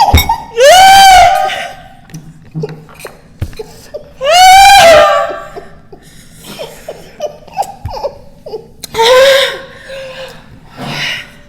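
A woman laughing hard in three long, loud, high-pitched squeals, with short breathy laughing pulses between them, while reeling from the heat of very spicy noodles.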